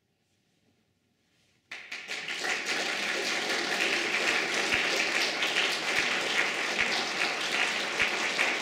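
A hushed pause, then audience applause starts suddenly a little under two seconds in and keeps going steadily.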